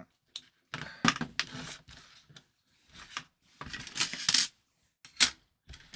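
Metal tools and parts clattering and clinking on a workbench as they are handled, picked up and put down: a run of separate short rattles and clinks, the loudest a little after four and five seconds in.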